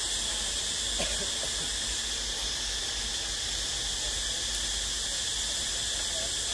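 Steady chorus of forest insects, a continuous high hiss, with a few faint short chirps about a second in.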